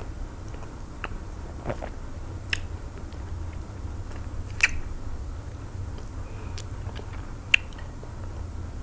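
Close-miked eating by hand: chewing, with a handful of scattered sharp, wet clicks and smacks as fingers work eba through slimy okro soup, over a steady low hum.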